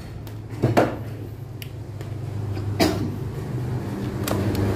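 A few sharp clicks and knocks as wire and pliers are handled, over a steady low motor hum that grows louder toward the end.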